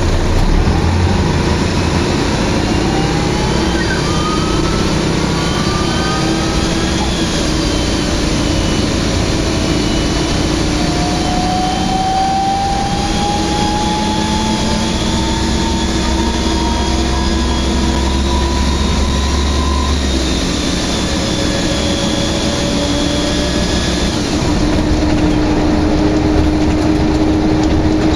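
Optare Solo midibus under way, heard from inside the passenger saloon: a steady engine drone with road noise. Through the middle a whine climbs slowly in pitch for several seconds, then drops away.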